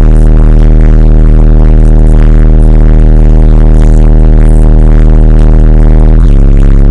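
TC Sounds car-audio subwoofer playing a steady, very loud low bass tone, distorted with strong overtones. The pitch steps down a little about six seconds in.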